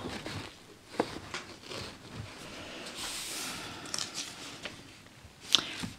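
Hands on an old magazine's paper pages close to the microphone: small rustles and light clicks, with a longer soft brushing sweep over the paper about three seconds in.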